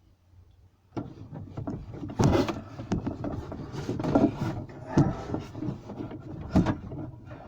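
Irregular knocks, clatters and rubbing of things being handled, starting about a second in.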